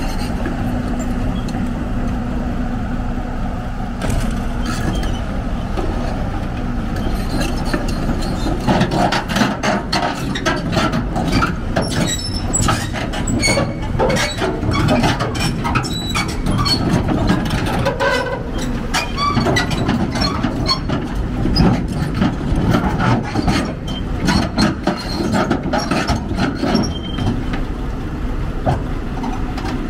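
Hyundai 290LC-7 crawler excavator's diesel engine running steadily while the machine tracks up steel ramps onto a lowboy trailer. From about eight seconds in its steel tracks clank and squeak against the ramps and trailer deck in a dense run of metallic knocks.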